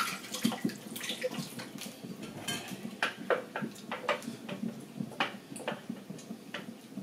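Tomato stew frying in oil in a covered pot, bubbling and spitting with irregular pops and crackles.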